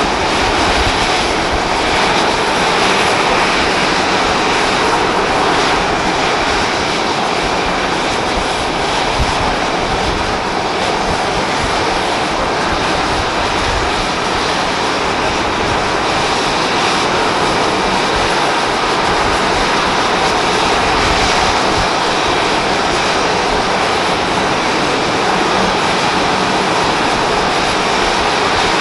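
Boeing 737-500's CFM56-3 turbofan engines running with a steady, even noise.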